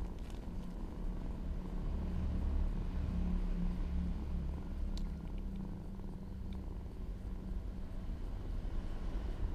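Orange tabby kitten purring, a steady low rumble that swells and eases, with a short sharp tick about five seconds in.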